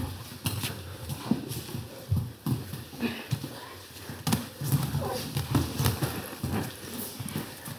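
Grappling on training mats: irregular thumps and scuffs of bodies and bare feet on the mats, with heavy breathing and grunts.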